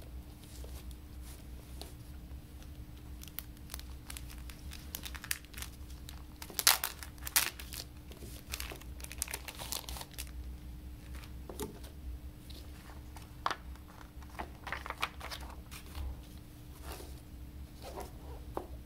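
Clear plastic shrink-wrap on a Blu-ray box set crinkling and tearing as it is peeled off by hand. The sharp, irregular crackles are loudest about seven seconds in and again around fifteen seconds, over a faint steady hum.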